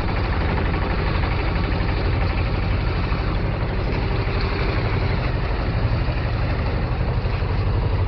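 Boat engine running steadily while underway: an even low throb with a steady hiss over it.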